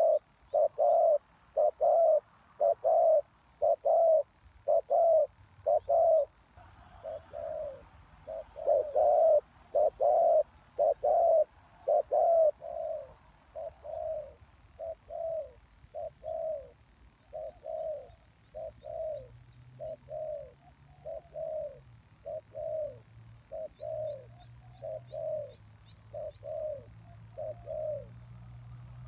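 Spotted dove cooing: a long run of short, hoarse coo notes, about one to two a second, loud for roughly the first twelve seconds and softer after that.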